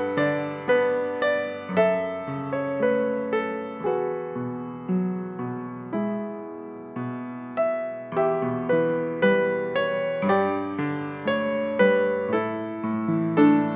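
Slow, gentle piano music: chords and melody notes struck about once or twice a second, each fading away before the next.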